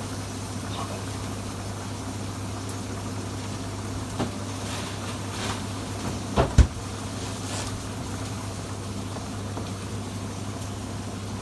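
Steady low hum, with a sharp knock about four seconds in and a louder double knock about six and a half seconds in.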